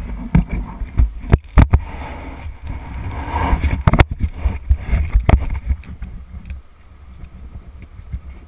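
Handling noise on an action camera and its mount: a series of sharp knocks and bumps over a low wind rumble, dying down to a quieter rumble after about six seconds.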